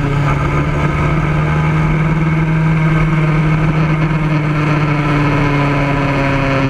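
Racing kart engine heard up close from a camera mounted on the kart, running at a steady pitch and easing off slightly near the end.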